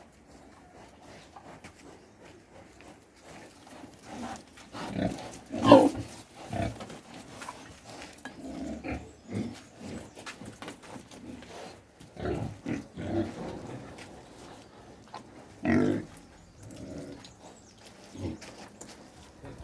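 Pigs grunting and squealing in irregular calls, starting about four seconds in, with the loudest call about six seconds in.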